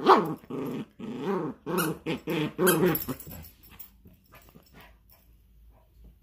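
Yorkshire terrier growling in play while tugging on a rope toy: a run of short, loud growls over about three seconds, then only faint clicks.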